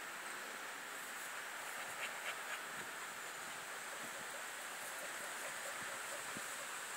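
Steady outdoor background noise with a high, even buzz, and a few faint ticks.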